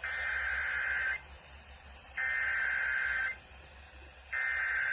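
Emergency Alert System SAME header: three bursts of screeching digital data tones, each about a second long and about a second apart.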